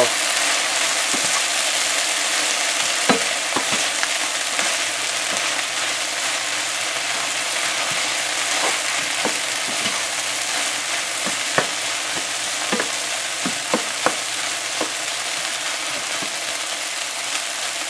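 Sliced okra with shrimp sizzling in an uncovered frying pan: a steady frying hiss, with scattered short knocks and scrapes of a spoon against the pan as it is stirred.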